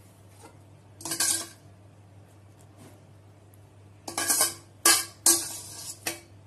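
Metal spoon scraping and knocking against a small metal tempering pan as the tempering is scraped out over the dhokla. There is one short scrape about a second in, then four more close together near the end.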